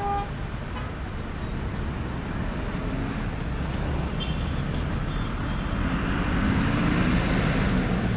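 Steady rumble of city street traffic. A vehicle passes closer in the second half, louder, its engine note rising as it accelerates.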